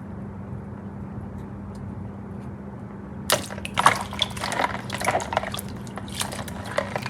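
Water splashing, trickling and dripping in short irregular bursts, starting about three seconds in, over a steady low hum.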